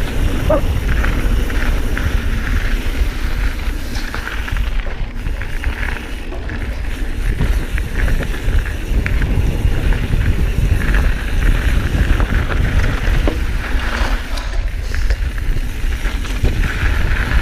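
Mountain bike descending a loose, shaly gravel trail at speed: wind buffeting the microphone in a steady rumble, with tyres running over gravel and the bike rattling and knocking over bumps.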